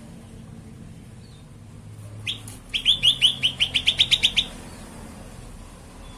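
Cucak kelabu (grey-bellied bulbul) calling: a single short note about two seconds in, then a fast trill of about a dozen quick, sweeping notes lasting under two seconds.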